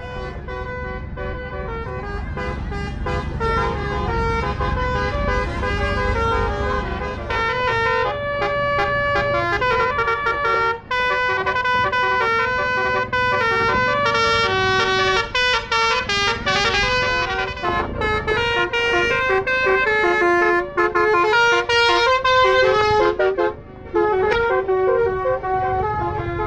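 Telolet horn on a Basuri tour bus playing a long, fast melody of stepped notes, several tones sounding together, growing louder over the first few seconds with a low rumble underneath. The tune breaks off briefly twice, near the middle and near the end.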